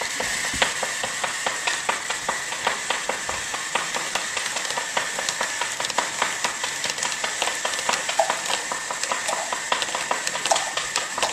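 A running Rube Goldberg machine: dense, irregular small clicks and clatters of its parts in motion, over a faint steady hiss.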